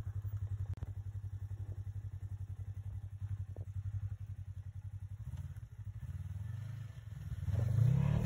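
Polaris RZR side-by-side's engine idling with a steady, fast low pulse, then picking up about five seconds in and revving louder near the end as the machine comes down off the trailer.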